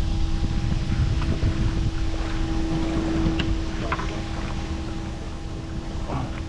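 Wind noise on the microphone over a steady hum aboard a small fishing boat, with a few light knocks as a freshly caught mangrove snapper is handled on the deck.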